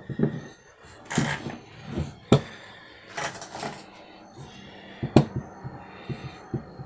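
Wooden wheelbarrow parts being handled on a workbench as the wooden wheel is fitted between the arms: a few sharp wooden knocks, with short scraping and sliding between them.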